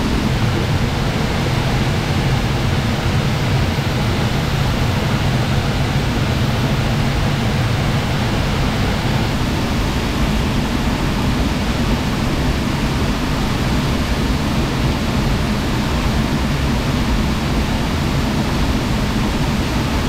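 The 10-metre Sgwd-yr-Eira waterfall pouring steadily, heard from behind its curtain of falling water: a loud, even rush of water that never breaks.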